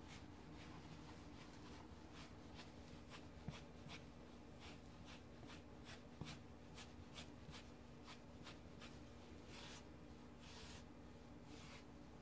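Faint, quick, repeated scratchy strokes of an Andis shedding tool raked through an English Cocker puppy's coat, pulling out the dark undercoat fuzz. A steady low hum runs beneath.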